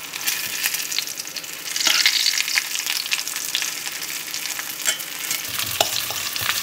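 Breaded steak cutlet sizzling and crackling as it fries in coconut oil in a metal pan, with a fork working it; the sizzle is loudest about two seconds in. A few clicks of a fork against metal near the end.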